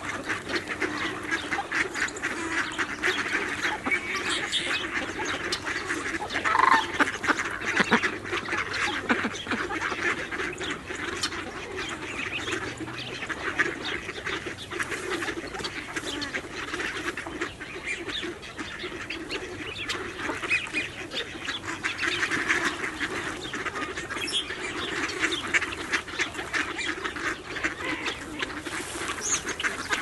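A large flock of mallards quacking and chattering continuously, many birds calling over one another, with a louder burst of calls about six to eight seconds in.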